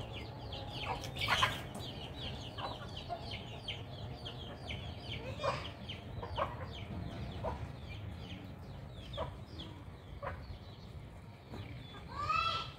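Birds chirping busily, several short high chirps a second, with a louder call that rises and falls in pitch near the end.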